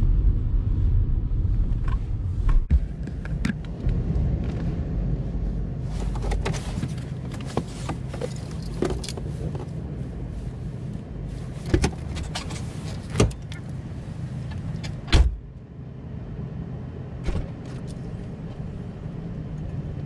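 Parked car with a low rumble, heard from inside the cabin, and a string of clicks and knocks as doors are opened and shut. The loudest thump comes about fifteen seconds in, after which the rumble is lower.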